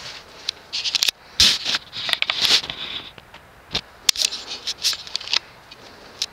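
Irregular clicks with short scraping, rustling bursts in between, coming at uneven intervals.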